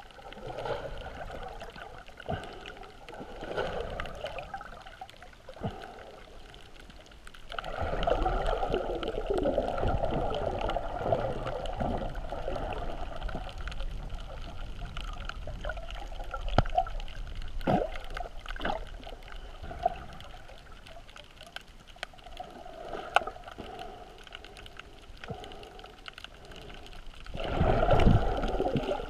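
Muffled underwater water noise picked up by a GoPro in its waterproof housing: sloshing and gurgling that swells louder for several seconds about a quarter of the way in and again near the end, with scattered sharp clicks.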